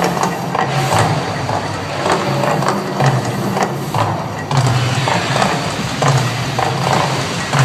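The Mirage volcano attraction erupting: a loud, crackling rush of its gas fire effects and fountains, with a low rumble that comes and goes.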